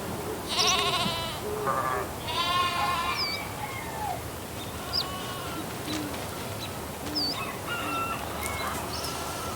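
Sheep bleating: three quavering bleats in the first three seconds, the first and last the longest. Short high bird chirps follow now and then over a steady rural background hum.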